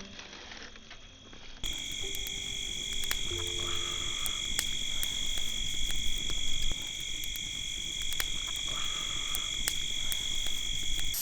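Steady night chorus of frogs and insects, a continuous high-pitched trill with scattered faint clicks. The first second and a half is the tail of background music before the chorus cuts in abruptly.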